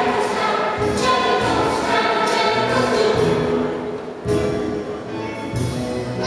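Music with a choir singing over instrumental backing, briefly dipping about four seconds in.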